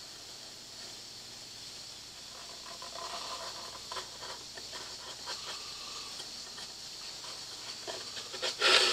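Marker pen drawing on a wooden spoon blank: faint scratching strokes and light ticks over a steady hiss.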